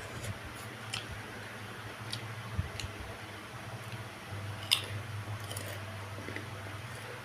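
Close-up sounds of a person chewing and biting food, with scattered sharp crunches and wet squishing over a low steady hum.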